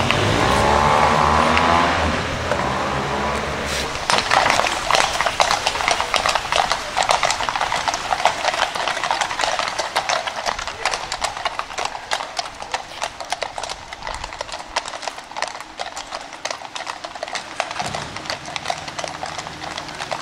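Many horses' hooves clip-clopping in a dense, rapid clatter from a horse-drawn state carriage and its mounted escort. The clatter is loudest from about four seconds in and slowly fades. Over the first couple of seconds a deeper sustained sound lies beneath it.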